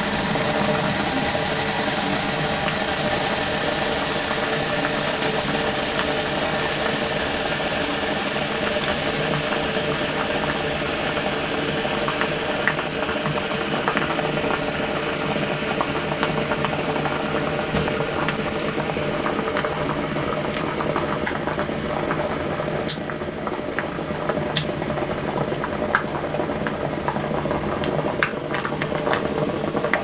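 Water boiling hard in a tin can, heated by a ceramic power resistor submerged in it: a steady rushing bubble with a steady hum underneath. About two-thirds of the way in the rush eases a little and separate pops and crackles of bursting bubbles come through.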